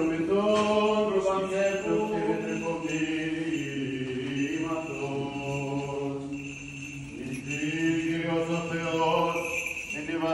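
Byzantine chant in a Greek Orthodox service: men's voices singing a slow melody on long-held notes.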